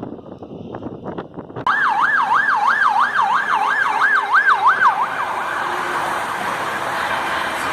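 Fire engine siren switching on suddenly about two seconds in, on a fast yelp that rises and falls about three times a second. After a few seconds the sweeps blur into a steady rushing wash.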